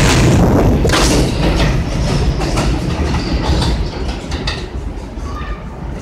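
R160A subway train pulling out of an elevated station and running off down the track. Its wheels click over the rail joints, and the rumble fades steadily as it recedes.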